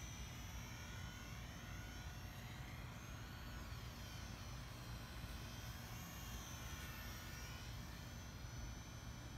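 Electric motor and propeller of a small foam RC plane whining faintly in flight, the pitch dipping and rising a couple of times as it passes and turns.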